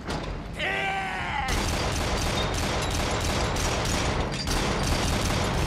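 A man shouts briefly, then about a second and a half in rapid shipboard anti-aircraft gunfire breaks out, with sharp shots about four a second over a dense rumble of battle.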